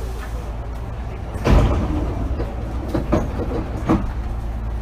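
Hankyu 8000 series train car standing at a station with a steady low hum, and a loud thump about a second and a half in as the sliding doors open, followed by a few lighter knocks.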